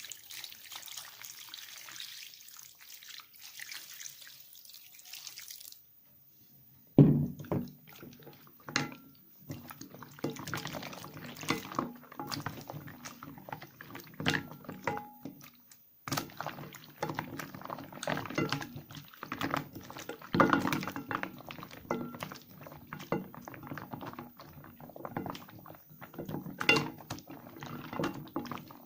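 Water runs from a tap for about six seconds. After a short pause a sharp knock comes about seven seconds in, followed by wet soap scraps being squeezed and lathered by hand in water, an uneven run of wet squishing and sloshing with small clicks.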